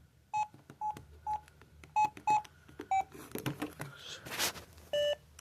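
Keypad beeps from an LG 220C flip phone as its buttons are pressed: about seven short, single-pitched beeps at irregular intervals, with a rustle of handling about halfway through.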